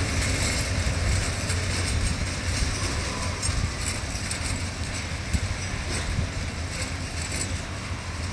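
Container flat wagons of a freight train rolling past on the rails: a steady rumble with the clatter of wheels on the track, slowly fading as the train draws away.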